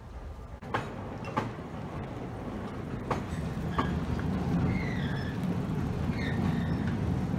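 Vintage Sóller electric tram and its open trailer cars running across a steel girder bridge: a low rumble that grows louder as it approaches, with a few sharp clicks of the wheels in the first seconds.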